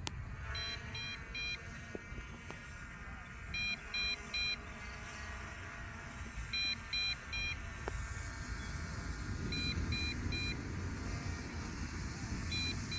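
Triple warning beeps from a drone's remote controller, repeating about every three seconds, during the drone's automatic return-to-home landing. Under them, a faint steady hum of the descending drone's motors and low wind rumble.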